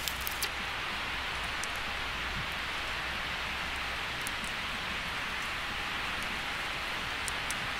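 Wood campfire burning: a steady hiss with a few sharp pops and ticks from the burning wood.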